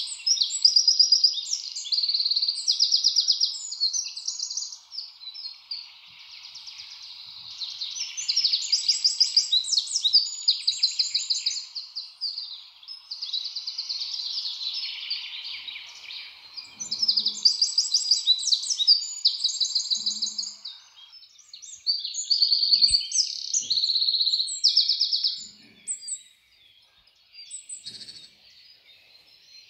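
Loud, rapid chirping trills in bursts a few seconds long, fading out near the end, with a few soft knocks in the second half.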